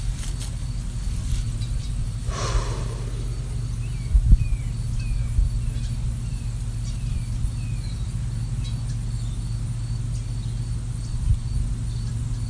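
Outdoor ambience with a steady low rumble throughout, over which a bird calls a quick series of about seven short, falling chirps. A brief rushing noise comes about two seconds in.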